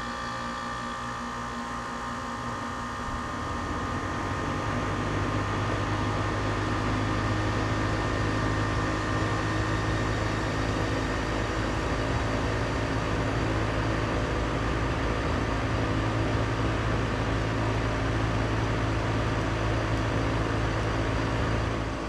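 Lennox Merit ML17XC1 central air conditioner outdoor unit starting up: the scroll compressor hums while the ECM condenser fan speeds up, the whir growing louder from about three seconds in and then running steadily.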